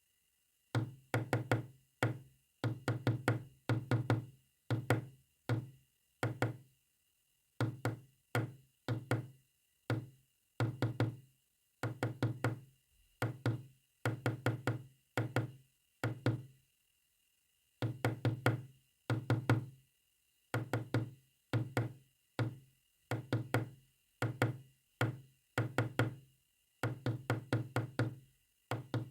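Low, resonant knocks coming in irregular groups of quick strokes separated by pauses, the rhythm of a Morse code message being tapped out.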